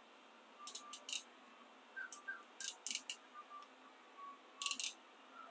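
German-made hand crimping pliers for insulated terminals being squeezed and worked: three quick runs of sharp metallic clicks, two or three clicks each, about two seconds apart.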